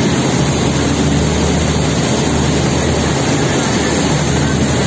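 RoRo ferry's two diesel engines running steadily under way, a constant low drone mixed with the rush of the churning wake along the hull.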